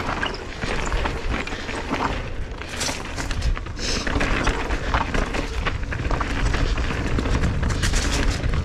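Mountain bike ridden fast down a dirt downhill trail: wind rumbling on the microphone and tyres running over dirt and rock, with frequent clicks and knocks from the bike over rough ground.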